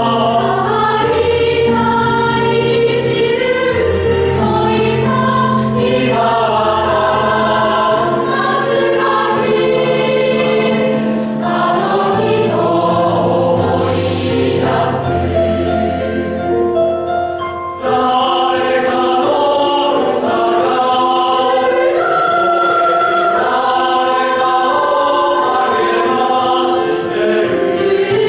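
Mixed-voice three-part choir of young students singing sustained chords in harmony. The lowest voices drop out after a brief dip about two-thirds of the way through, and the upper parts carry on.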